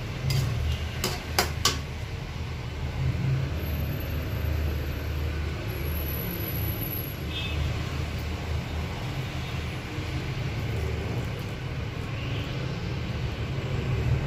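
A metal spatula clicks against a wok a few times in the first couple of seconds while shrimp fry in the pan, over a steady low rumble.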